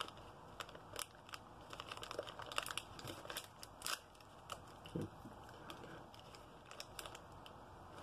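Small snack pouch crinkling and tearing as it is pulled open by hand: faint, irregular crackles and rustles.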